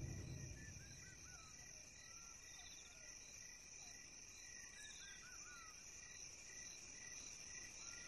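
Faint bush ambience: insects trill steadily in several high, even tones, some pulsing, with a few soft bird chirps clustered around the middle. A low sound from just before fades out in the first half-second.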